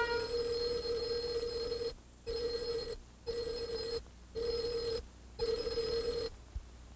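1940s telephone ringer, its clapper striking twin metal gongs: one ring of about two seconds, then four shorter rings with brief gaps between them.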